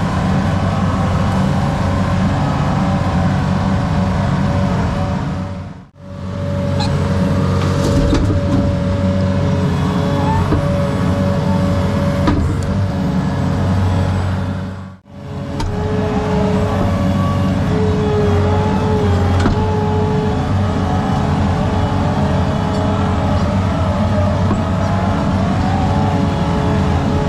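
Engine of a piece of construction machinery running steadily, heard in three stretches split by two brief fades to silence, about six and fifteen seconds in.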